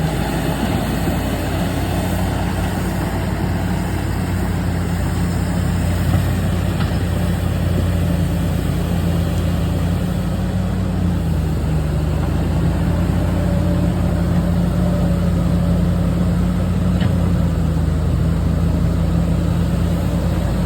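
Bulldozer's diesel engine running at a steady, even speed.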